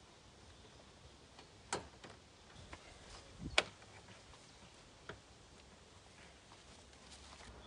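A few sharp clicks and taps as a plastic rain-gutter connector is handled and snapped onto the gutter, the loudest about three and a half seconds in, just after a dull knock.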